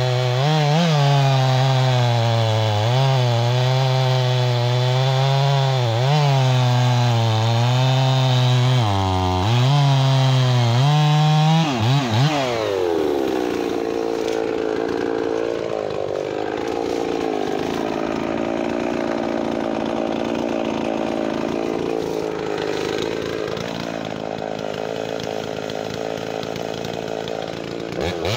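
Gas chainsaw cutting through a log at full throttle, its engine note wavering as the chain bites. About twelve seconds in the throttle is let off and the pitch falls, and the saw runs quieter at low speed. Near the end it revs up again for the next cut.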